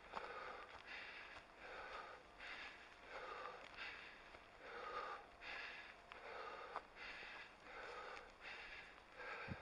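A person breathing hard and rhythmically, about two breaths a second, close to the microphone of a helmet-mounted camera.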